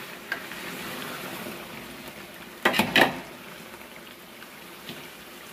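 Desi chicken pieces sizzling in tomato masala in a large aluminium pot as they are stirred and browned (bhuna) with a spoon. Two sharp knocks, close together, sound about three seconds in.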